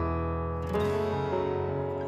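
Instrumental background music with sustained pitched notes; a new chord comes in about three-quarters of a second in.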